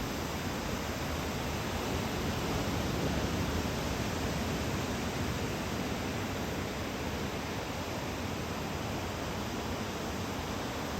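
Surf rushing steadily on the beach, a continuous even roar from breaking typhoon swell, swelling slightly about three seconds in.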